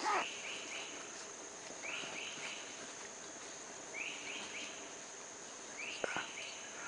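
Forest ambience: a steady high-pitched insect drone, with a bird repeating a quick three-note phrase about every two seconds. A louder short call falling in pitch comes at the very start, and a short sharp sound about six seconds in.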